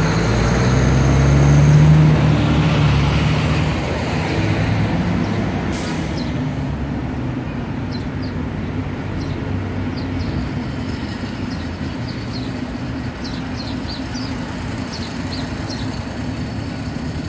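City street traffic: a heavy vehicle's engine hums past close by, loudest about two seconds in, then fades into steady traffic noise.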